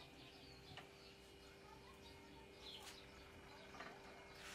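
Near silence: low room tone with a steady faint hum, a few faint high chirps and some soft ticks.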